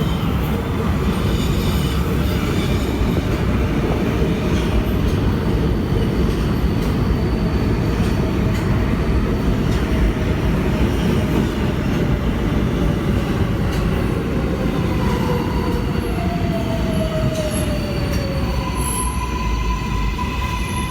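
Kawasaki R188 subway train running on the 7 line: a loud, steady rumble of wheels on rail. A faint whine falls in pitch about three quarters of the way in, and a steady high tone comes in near the end.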